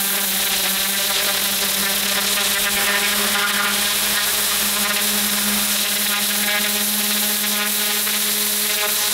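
Pressure washer running steadily: a constant machine hum with the hiss of the lance's water jet blasting the paving slabs.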